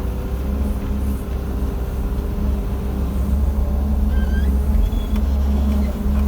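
Diesel engine of a JCB JS160 excavator running steadily under working load, a low drone that swells and eases a little as it works. A few short high chirps come in around the middle.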